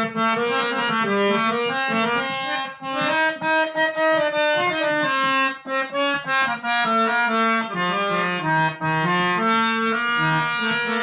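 Instrumental interlude of a Shiva bhajan: a harmonium plays the tune in held notes that step up and down, with no singing.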